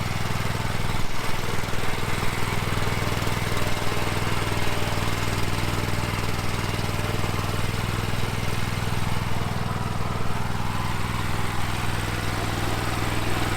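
Honda four-stroke engine of a self-propelled wood chipper running steadily at a constant speed.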